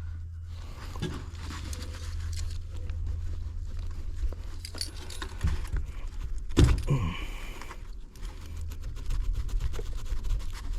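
Small metal parts and tools clicking and jangling as wiring is handled in a heat pump's control compartment, over a low steady hum. A short vocal grunt comes about two-thirds of the way through.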